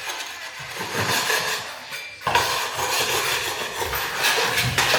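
A hand tool scraping and knocking lumps off a hard floor, with rough, continuous scraping and clattering and a short pause about two seconds in.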